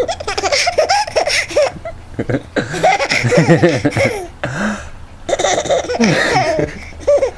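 A small child laughing hard in several high-pitched bouts with short breaks between, set off by a sneeze just before.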